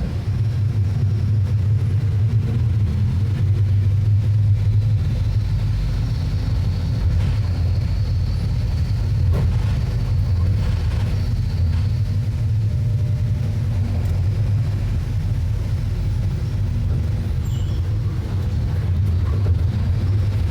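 A Mercedes-Benz OF-1721 Bluetec 6 bus's four-cylinder diesel engine running steadily with a deep drone, with a faint high whine in the middle stretch.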